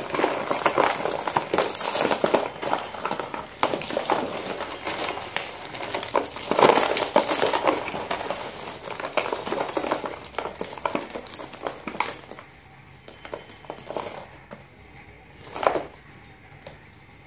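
Hands stirring through a box of slate pencils: dense clattering and clinking of the thin slate sticks against each other, thinning to scattered single clicks about twelve seconds in as individual pencils are picked out.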